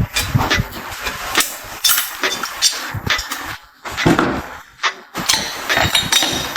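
Hand tools working on car parts: irregular knocks, taps and clatter, several strikes a second in uneven bunches.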